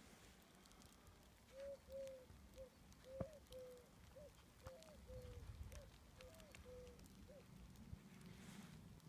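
Near silence, broken by a faint bird calling: about a dozen short notes at one pitch, each rising and falling slightly, over several seconds. A few soft clicks are heard as well.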